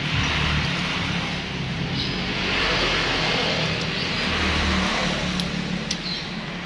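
Yamaha F1ZR two-stroke moped engine, bored to a 116 cc spec, running on the road amid wind and road noise. It swells in loudness from about two seconds in and eases after about five seconds.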